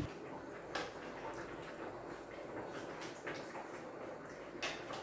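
Quiet kitchen background with a few faint, light clicks, the sharpest about four and a half seconds in: a spoon knocking as food is moved from a plate into a cooking pot.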